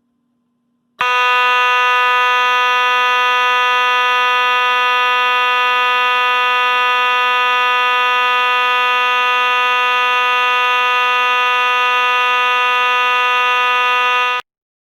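Simplex 2903-9101 mechanical fire alarm horn sounding a continuous, steady buzzing tone. It starts suddenly about a second in and cuts off abruptly near the end.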